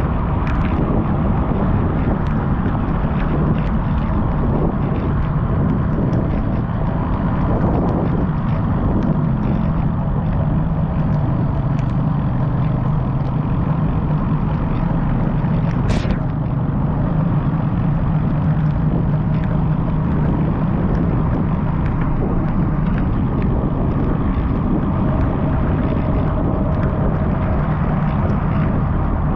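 Steady rumble of wind and road noise from riding a bike, with a faint steady hum, scattered small clicks and one sharp click about halfway through.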